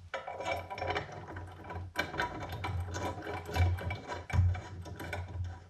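Rapid, irregular mechanical clicking and rattling of metal drill-press parts being worked into place by hand, with a few heavier knocks about halfway through.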